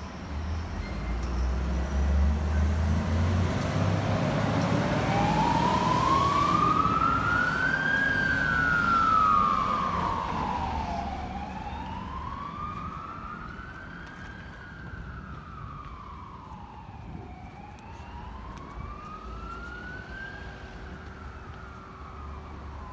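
Fire engine heading out on a call: a heavy engine rumble, then its siren starts about four seconds in. The siren is a slow wail, rising and falling about every six seconds, and it fades as the truck drives away.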